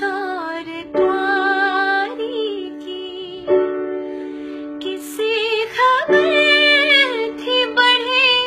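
A woman singing solo, slow held notes with wavering ornaments and vibrato, over a steady sustained drone.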